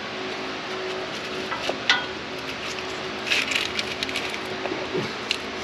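Hands pulling at an engine wiring harness and its connectors: a sharp click about two seconds in, then a cluster of clicks and rattles a little past three seconds, over a steady fan hum.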